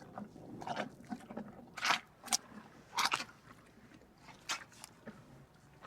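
An animal chewing: irregular crunches and clicks, with a few louder ones about two, three and four and a half seconds in.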